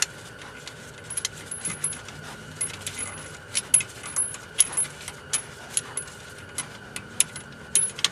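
Irregular metallic clicks and clinks, one to three a second, of a hand tool working against the steel tie rod and its jam nut as the outer tie rod is threaded onto the inner tie rod.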